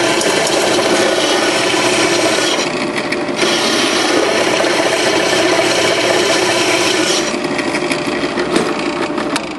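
Step drill bit cutting into a cast-iron brake rotor to open a new lug hole, a loud steady grinding over the drill's running motor. The cutting eases briefly about three seconds in and again after about seven seconds, with a few sharp clicks near the end.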